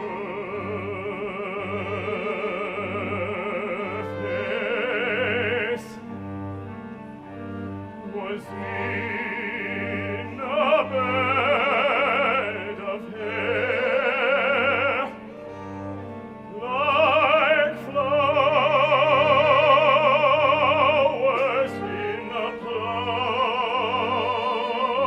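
Operatic singing with strong vibrato in phrases broken by short pauses, over an instrumental accompaniment with a low note pulsing about once a second.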